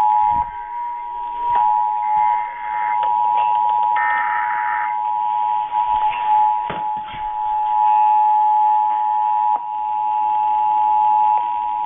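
Emergency Alert System two-tone attention signal: two steady tones sounding together, held unbroken. It marks the start of an EAS required monthly test, before the voice message.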